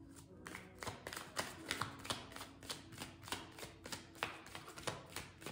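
Tarot deck being shuffled by hand: a quick, irregular run of crisp card taps and slaps, about three or four a second.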